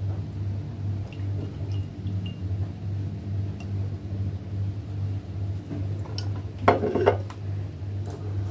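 Wine poured from a small glass bottle into a glass, with faint trickling, over a steady low hum. About seven seconds in there is a brief louder clatter of glass.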